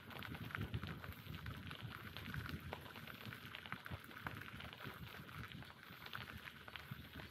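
Bicycle tyres rolling over a gravel forest path: a continuous crackle of small clicks over a low rumble.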